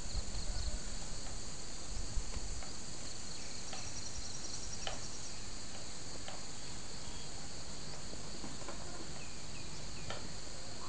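A steady, high-pitched chorus of insects such as crickets, with a few faint short chirps or clicks over it. A low rumble runs through the first couple of seconds.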